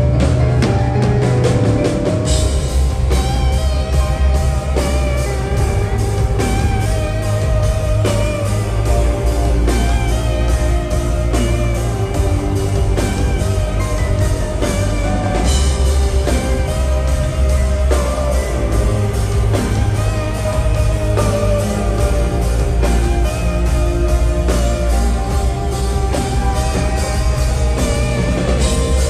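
Live rock band playing an instrumental passage with no vocals: electric guitar and synthesizer over drums and a heavy, steady bass.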